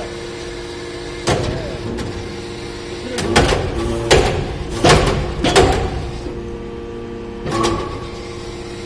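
Hydraulic metal-chip briquetting press running with a steady hum and a string of sharp knocks and clunks, bunched about three to six seconds in. The knocks come as a newly pressed briquette of machining chips is pushed out of the chamber.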